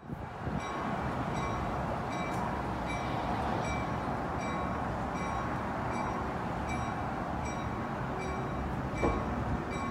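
Train bell ringing steadily, about twice a second, over a low rumble of a train. A single brief knock sounds near the end.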